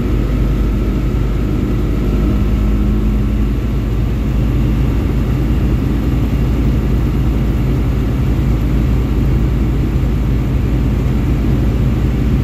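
Tecnam P2002 light aircraft's piston engine and propeller droning steadily, heard inside the cockpit on final approach to land.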